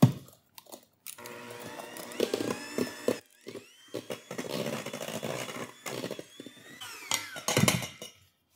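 Electric hand mixer running, its beaters whipping egg whites and sugar into a fluffy meringue in a stainless steel bowl. The motor's whine shifts up and down in pitch, with a brief break a little after three seconds in.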